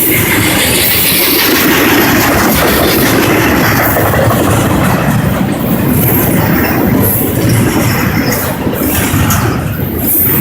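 Norfolk Southern freight train rolling past at close range, its steel wheels clattering steadily over the rails.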